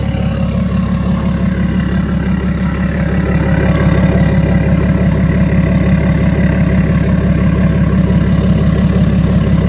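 BMW X5 diesel engine idling with its DPF deleted, a steady loud drone with a continuous high turbo whistle over it. It gets a little louder about three seconds in.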